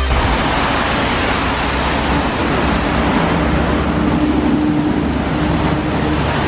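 Steady noise of street traffic on wet, rain-soaked roads, with a faint steady hum.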